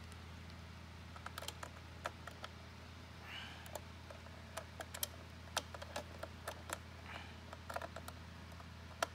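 Small scattered clicks and taps of a small screwdriver driving a Phillips screw into the plastic body of a Lionel model train locomotive, over a low steady hum.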